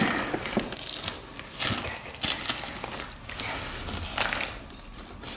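Gift wrapping paper crinkling and rustling as a present is unwrapped by hand, in irregular crackly rustles.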